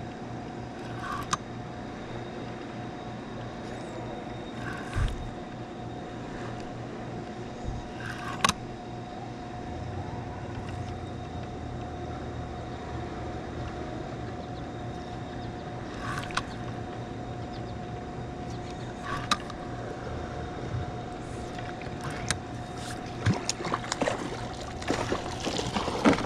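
Spinning reel being cranked as a channel catfish is reeled in, with a steady hum and a few sharp clicks. Clicks and splashing build near the end as the fish reaches the side of the kayak.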